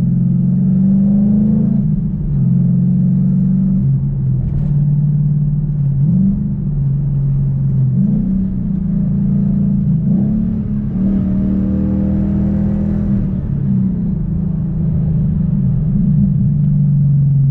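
2014 Ford Mustang GT's 5.0-litre V8 running while being driven. Its pitch drops suddenly and climbs back up several times, as it does when the car is taken through the gears.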